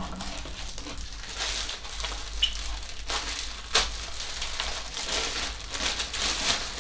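Plastic food packaging crinkling and rustling as it is handled and opened, with one sharp click a little before the four-second mark.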